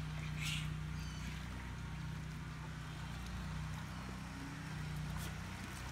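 Steady low motor hum, with a short hiss about half a second in and a faint click near the end.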